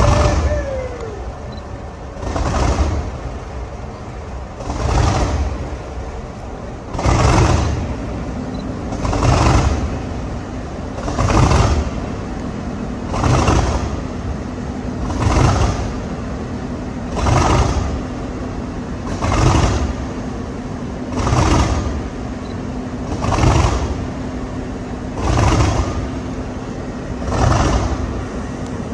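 A Class 37 diesel locomotive's English Electric V12 engine running just after a cold start, its sound swelling and falling about every two seconds. A steady hum joins in about seven seconds in.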